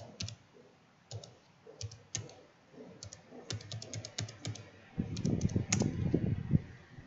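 Typing on a computer keyboard: scattered single keystrokes, then quicker runs of key presses in the second half, loudest near the end.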